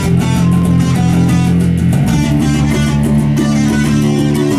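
Electric guitar and bass guitar playing a rock riff together, loud and steady, moving to new notes about two seconds in.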